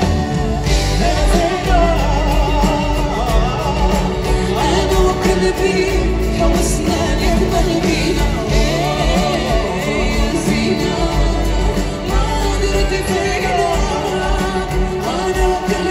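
Live band and orchestra playing an Arabic pop song, with strings, saxophones, keyboard and drum kit over a steady, bass-heavy beat, with singing over it.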